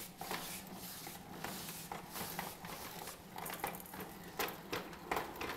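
Plastic baby walker rolling and bumping across a tile floor: irregular light clicks, taps and rattles from its wheels, frame and tray toys.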